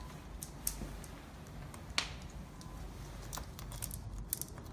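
Scattered light clicks and taps of screws and cabinet parts being handled as part D is loosely connected to the cabinet, with one sharper click about two seconds in and a quick run of clicks near the end.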